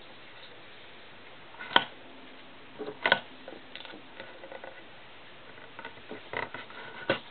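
Knife stripping the insulation off a thin wire against cardboard: a few short, sharp clicks and scrapes with quiet gaps between them.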